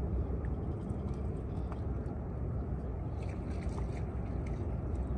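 Steady low rumble with a few faint, scattered clicks.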